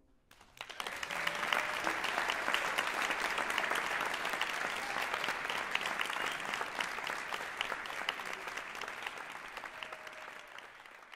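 Audience applauding, the clapping starting about half a second in and slowly dying away near the end.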